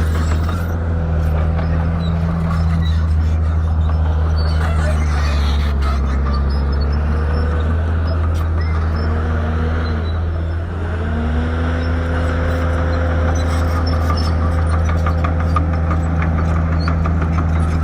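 Shantui bulldozer's diesel engine running steadily and loud; its pitch sags and wavers about ten seconds in, then recovers and holds.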